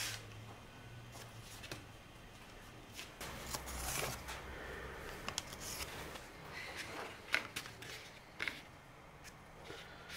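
Paper veneer tape and a thin sheet of wood veneer being handled and pressed down by hand: light, irregular rustling and small taps, with a few sharper clicks in the second half.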